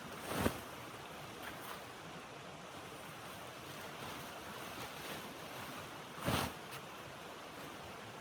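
Steady rushing blizzard wind, broken by two short, sharp noises: one about half a second in and a louder one about six seconds in.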